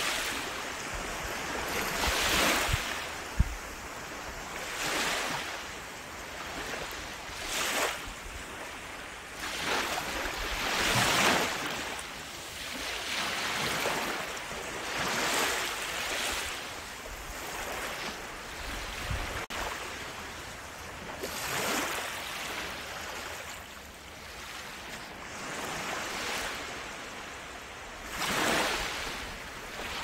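Sea waves breaking and washing up the shore, one surge of surf rising and falling about every two to three seconds over a steady wash.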